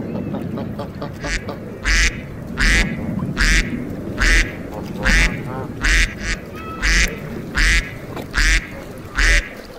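Duck quacking: a steady run of about ten loud quacks, evenly spaced a little under a second apart, over a low steady background noise.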